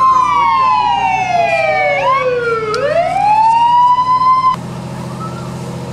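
Fire truck siren wailing, its pitch falling slowly, then winding back up. About four and a half seconds in it stops abruptly, giving way to a steady low engine rumble.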